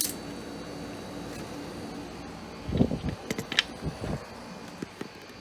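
1984 General Electric Quietaire window air conditioner with a GE rotary compressor running with a steady hum. From about three seconds in, a few low knocks and sharp clicks of handling come over it.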